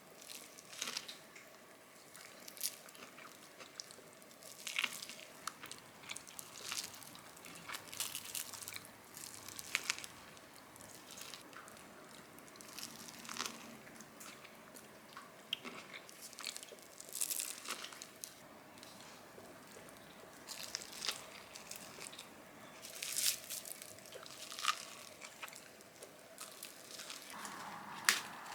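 A person eating crunchy food at close range: irregular crisp bites and crunching chews, one after another.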